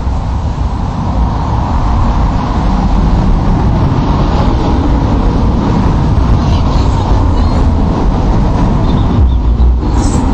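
A motor vehicle running close by, loud and steady.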